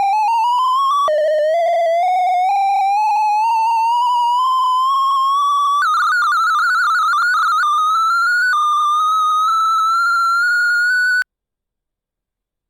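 Sound of Sorting's synthesised beeps as Radix MSD sort reads the array, each tone's pitch set by the value being accessed. They form a rapid warbling tone that climbs in pitch in several stretches, starting over lower a few times, and it cuts off suddenly near the end.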